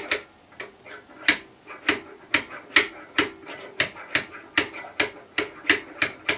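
Light metal-on-metal taps, about two a second and evenly spaced, as a gear is driven down onto the steel spindle of a lathe headstock by tapping it on the shaft.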